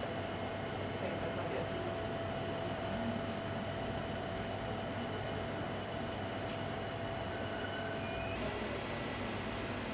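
3D printer running as it prints: a steady mechanical hum and whir with a held tone that stops and shifts to a different pitch about eight seconds in.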